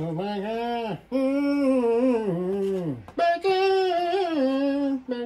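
A man singing in long, drawn-out notes that slide up and down, in three phrases with short breaks between them.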